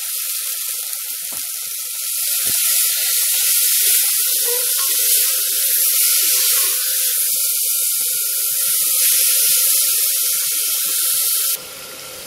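Tomatoes and spices sizzling in hot oil in an aluminium pressure cooker, a steady hiss that grows louder about two seconds in and cuts off abruptly near the end.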